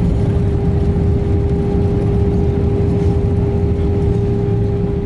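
Airbus A319 cabin noise during the landing rollout: the wheels rumble on the runway and the engines run with a steady hum as the jet slows with its spoilers up. Loud and even, easing a little near the end.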